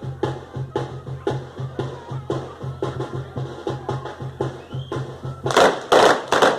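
Traditional dance music with a drum striking steadily about twice a second over a pulsing low bass tone. Near the end comes a loud burst of harsh noise lasting about a second.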